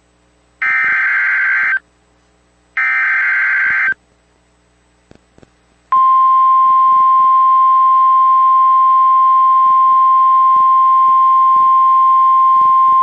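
Emergency Alert System SAME header data bursts from NOAA Weather Radio: two harsh, buzzing digital bursts of about a second each with a second's gap between them. About six seconds in, the steady single-pitch 1050 Hz NOAA warning alarm tone begins and holds. The sequence marks the start of a new warning broadcast, here a tornado warning.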